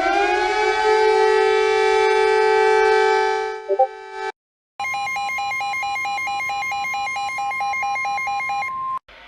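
Emergency alert sounds. A two-tone siren finishes winding up and holds steady, then drops and cuts off about four seconds in. After a short gap, a fast electronic warble alternating between pitches runs for about four seconds and stops.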